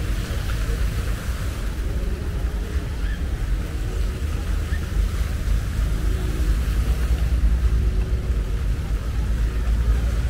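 Continuous low rumble of wind buffeting the microphone, mixed with the drone of a running engine whose faint steady tones come and go.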